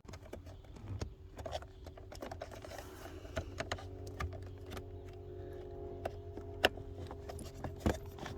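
Plastic clicking and rattling as heated-seat wiring clips and connectors are handled and pushed into place by hand, with a few sharper snaps, the loudest late on as a clip clicks home.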